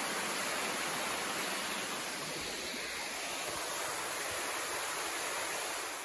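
A small mountain creek cascading over rocks: a steady rush of running water.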